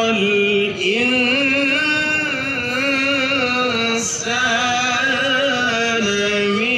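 A male qari reciting the Quran in melodic tilawah style, heard over loudspeakers: long held, ornamented notes in phrases, with short breaks for breath about a second in and again around four and six seconds.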